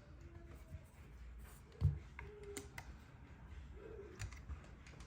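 Lecoo speaker in AUX mode giving off a faint, steady low electrical hum: the buzzing fault being demonstrated. Scattered sharp clicks and a thump about two seconds in come over it.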